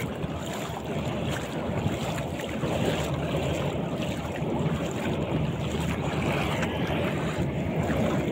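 Steady wind rumbling on a phone's microphone, over the wash of a shallow river.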